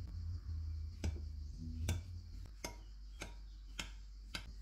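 A metal fork is stabbed again and again into a baked cake in a glass baking dish. Each stab gives a sharp click as the tines hit the glass: six clicks, a little over half a second apart.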